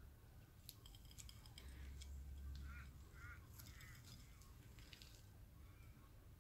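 Near silence: faint outdoor ambience with scattered soft clicks and three short, faint high chirps about halfway through.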